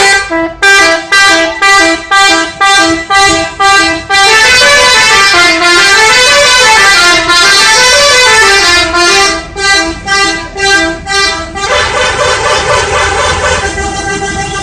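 Telolet horn of the SCH 716 bus, a multi-note musical bus horn, playing a loud tune. It opens with a run of short repeated notes, then a melody that rises and falls, then more short notes, and about twelve seconds in it settles into a long held chord.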